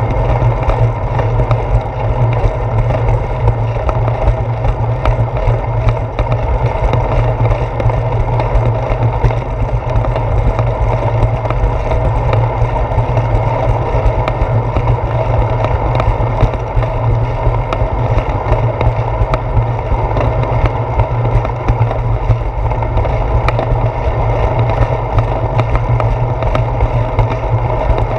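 Bicycle tyres rolling fast over a concrete sidewalk, picked up through a handlebar-mounted GoPro as a steady rumble, with many small clicks and rattles throughout.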